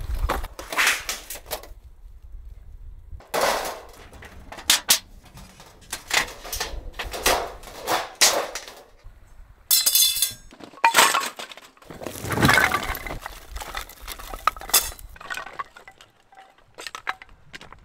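Camping gear being handled and set down: irregular clinks and knocks of hard items, with a short rattle about ten seconds in.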